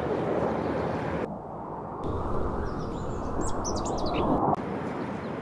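Steady outdoor background noise with a few quick bird chirps about three to four seconds in.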